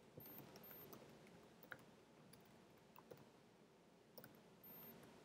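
Faint, scattered keystrokes on a computer keyboard as a command is typed, a few separate clicks spread over several seconds.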